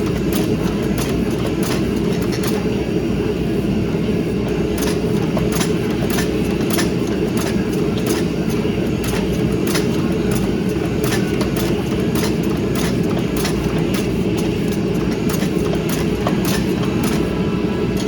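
Steady low roar of a propane gas forge's burner, with scattered sharp ticks and clicks over it.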